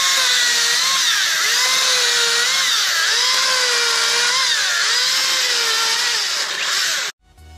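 Makita DUC353 cordless brushless 36-volt electric chainsaw running at speed and cutting wood, its motor whine dipping and recovering several times as the chain takes load. The sound cuts off abruptly about seven seconds in.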